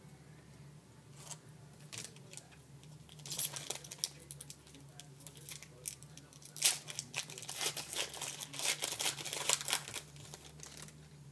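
A trading card pack's wrapper being torn open and crinkled, giving irregular crackles that come thick in two spells, over a steady low hum.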